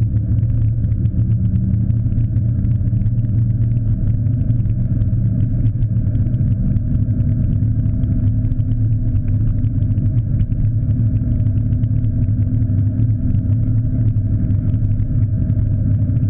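Steady low rumble of a car driving on city streets, muffled because it is heard through a camera's sealed waterproof housing that blocks most of the sound.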